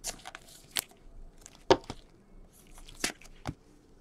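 A few sharp taps and clicks with light rustling between them: gloved hands handling trading cards on a tabletop.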